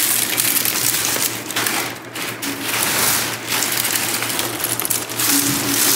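Dry white sage leaves and stems crackling and snapping as they are broken up by hand, with a plastic bag rustling around them.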